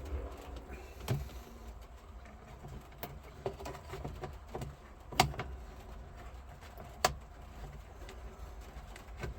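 Scattered sharp clicks and knocks, about five of them with the loudest about five seconds in, from screws and a screwdriver working a glove box liner into place under a car dash, over a steady low hum.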